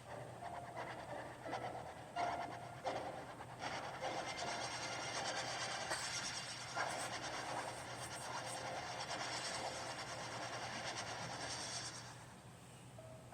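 Cartoon sound effect: an irregular clatter of knocks over a hissing, rushing noise that cuts off near the end.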